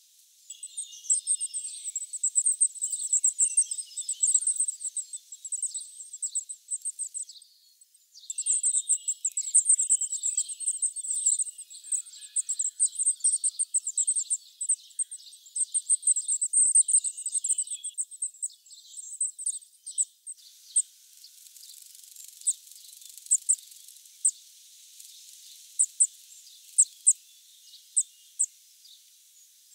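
Goldcrest nestlings begging in a dense, shrill chatter of very high, rapid notes, with a brief pause about a third of the way in, while a parent feeds them. In the last third the chorus gives way to isolated thin, high single calls.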